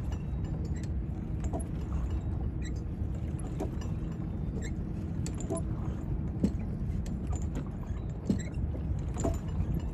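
Steady low rumble of wind on the microphone, with faint irregular clicks or taps about once a second, the sharpest about two thirds of the way in.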